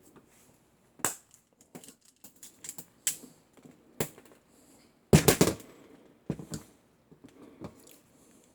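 Hand wire stripper/cutter clicking and snapping while cutting a piece of 14-2 electrical cable: scattered sharp clicks, with a loud crunching cluster of several quick snaps about five seconds in.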